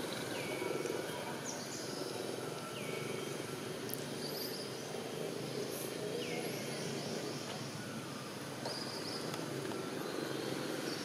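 Outdoor ambience: a steady background hum with bird calls over it, a short falling note repeated three times about three seconds apart and a few higher chirps.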